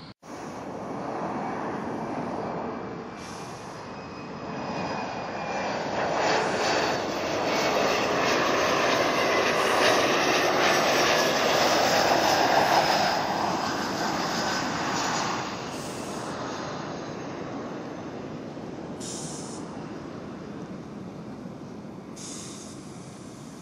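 Jet airliner passing by. Its engine noise swells to a peak about halfway through and then fades, and a faint whine falls in pitch as it goes past.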